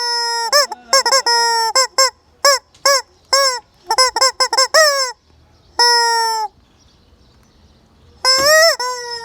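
Squeezed rubber squeaker chicken toy honking: a rapid run of short, pitched squawks, then a single drawn-out squawk and, after a pause, another long one near the end, each starting with a quick upward slide in pitch.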